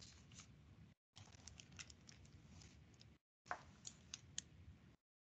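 Near silence: faint room noise over a video call, cutting in and out abruptly, with a few light clicks near the end.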